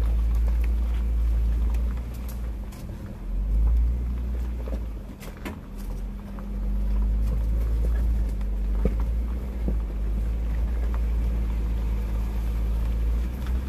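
Jeep Wrangler's 3.6-litre V6 running at low speed on a rough dirt trail, heard from inside the cabin as a heavy, steady low rumble, with a scatter of short knocks over the uneven ground.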